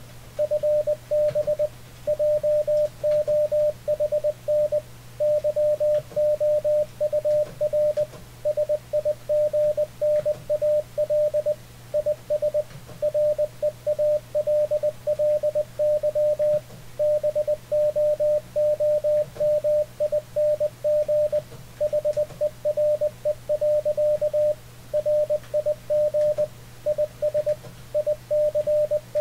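Morse code sent at 20 words per minute from a keyboard: the Icom IC-7300's CW sidetone, a single steady tone of about 600 Hz keyed rapidly on and off, with a low steady hum under it.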